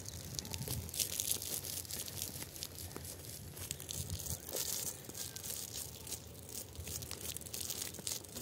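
Footsteps crunching on dry, stony soil and grass: an irregular run of short crackling ticks.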